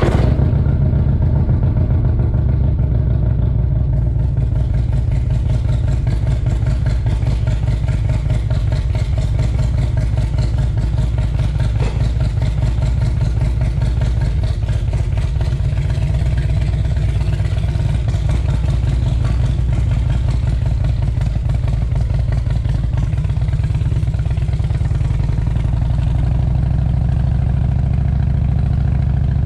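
Motorcycle engine running with a steady low rumble, idling at first and then pulling away at low speed.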